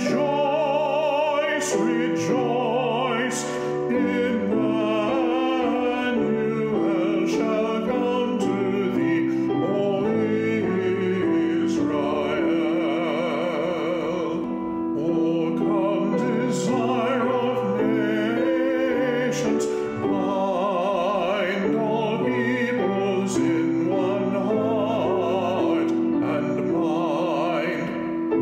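Classical vocal solo with piano accompaniment: a trained voice singing with wide vibrato over held piano chords.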